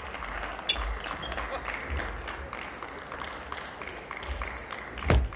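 Table tennis ball clicking off bats and table a few times in the first two seconds, over the steady noise of a large sports hall. There is one louder thud near the end.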